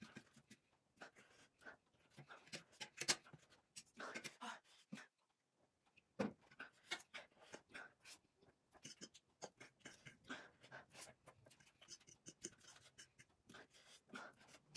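Faint eating sounds: a fork clicking and scraping on a ceramic plate of noodles, with slurping and chewing, in short irregular bursts and a brief pause about five seconds in.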